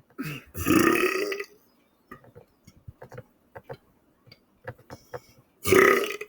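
A man's loud belches: a long one of over a second near the start and a shorter one near the end, with quiet mouth clicks between. They are attempts to burp the alphabet.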